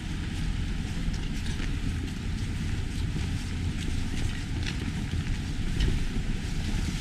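Steady low rumble inside a moving ropeway cable car cabin, with faint light clicks now and then.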